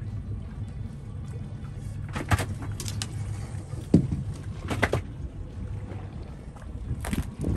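Outboard motor idling steadily on a small fishing boat, with several short knocks and clatters on the boat, the loudest a low thump about four seconds in.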